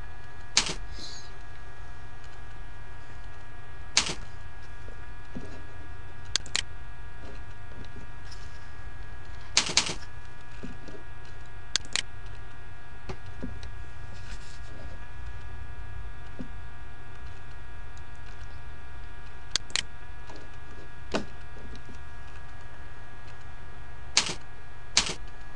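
Computer mouse clicks and keyboard keystrokes: a dozen or so short, sharp clicks spaced a few seconds apart, some in quick pairs, as dates and weights are entered into a spreadsheet. A steady electrical hum runs underneath.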